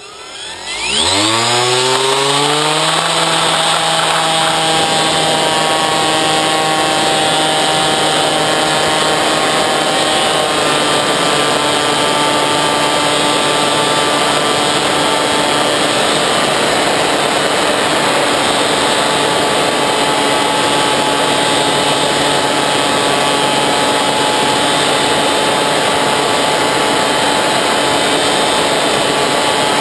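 Bixler 3 RC plane's brushless electric motor and pusher propeller, heard from a GoPro mounted on the plane: it spools up with a steeply rising whine over the first two seconds or so, then runs as a steady, loud buzzing drone in flight, its pitch shifting slightly about ten seconds in.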